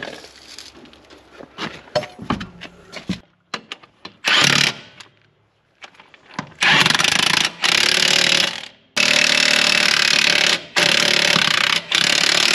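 Cordless impact wrench tightening the wheel nuts on a muck spreader wheel: a short run about four seconds in, then repeated loud rattling hammering runs of one to two seconds each with brief pauses between. Before the first run there are light metal clicks and knocks.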